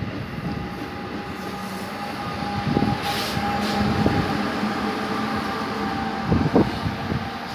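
Electric passenger train moving through the station: a steady whine at several pitches over rolling rumble, with a few louder knocks from the wheels on the rails.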